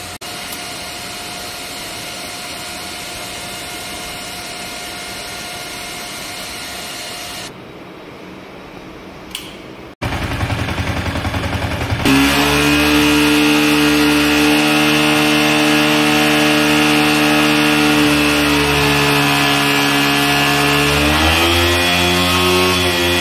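Yamaha R15 V4's 155 cc single-cylinder engine running with its newly replaced electric radiator fan spinning, heard close up at the radiator. The fan now switches on as the engine heats up, curing the overheating that showed as 'HI' on the meter. A steady hum drops away and cuts out about ten seconds in, then returns as a louder steady running sound that rises in pitch near the end.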